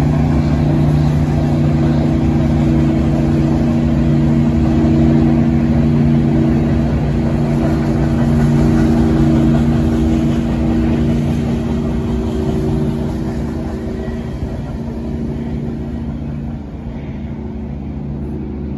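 Diesel locomotive engine running with a steady, deep drone, a little quieter near the end.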